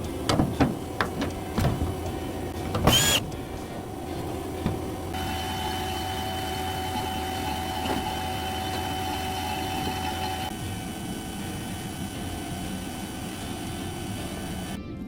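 Several clicks and knocks, then a small motor running steadily with a faint whine from about five to ten seconds in.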